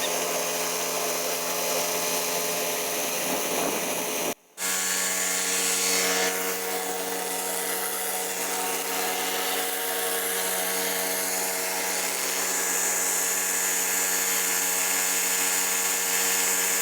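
Pressure washer engine running steadily under the constant hiss of high-pressure water spraying concrete. The sound drops out for a split second about four seconds in.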